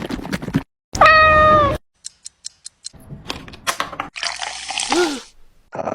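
A cat meows once, loudly, about a second in, followed by scattered short clicks and a brief hiss like running water.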